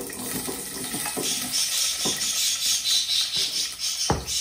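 Chopped onion sizzling in hot oil in a steel saucepan as it is scraped in from a bowl, with a slotted spoon knocking against the bowl a few times and a sharper knock near the end.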